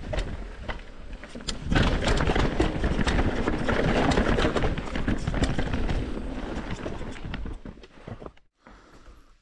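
Mountain bike running fast over a rough dirt trail: a rushing tyre noise with many rattles and knocks. It is loudest for several seconds, then dies away and cuts out abruptly about eight and a half seconds in.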